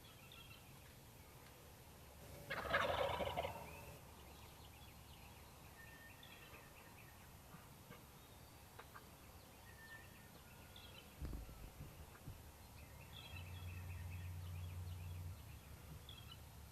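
A wild turkey tom gobbling once, about two seconds in, the loudest sound by far, over a faint background of small high chirps.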